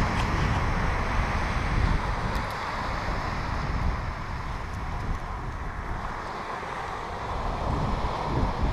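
Wind buffeting the camera's microphone as a rumble that rises and falls, over the steady hiss of small waves washing onto the shore.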